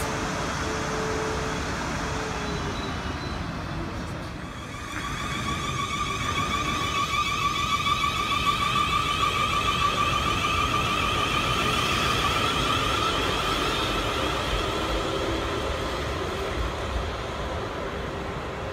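A Siemens Desiro electric multiple unit pulling away from the platform. About five seconds in, its traction motors start a steady high whine over the rumble of the wheels. The sound grows louder, then eases as the train draws away.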